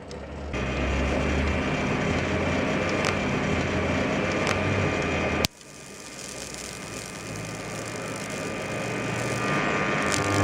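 High voltage from a microwave-oven transformer buzzing steadily with a deep mains hum as it drives lamps, with a few sharp clicks. The buzz cuts off suddenly about five and a half seconds in, then swells back up gradually.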